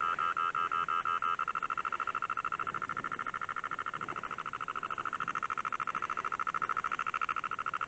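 An electronic alarm from a ghost-hunting detector: a single high tone pulsing rapidly and evenly, without a break.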